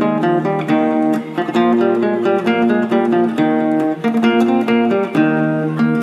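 Background music of plucked strings, an acoustic guitar picking a melody over held chords.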